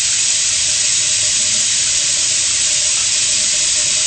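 Steady hiss of water running, as from a tap left on in a bathroom sink, unchanging throughout.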